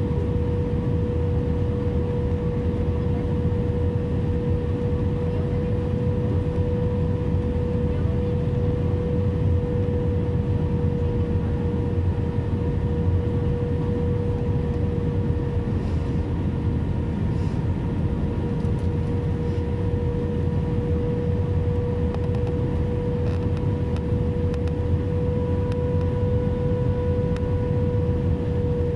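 Cabin noise inside an Airbus A320 on approach: a steady rumble of airflow and its IAE V2500 turbofan engines, with a constant hum tone held throughout.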